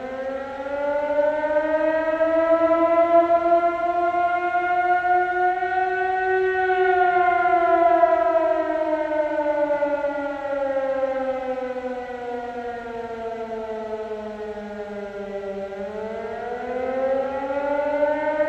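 Air-raid siren winding up, sliding slowly down in pitch, then rising again near the end.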